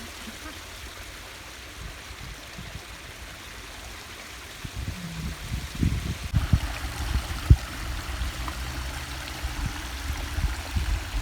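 Water running in a small landscaped stream, a steady rushing hiss, with wind buffeting the microphone from about halfway through.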